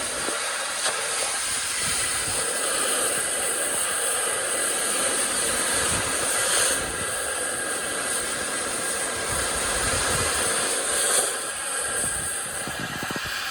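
Cutting torch hissing steadily as it cuts through the steel of the truck bed's side boxes.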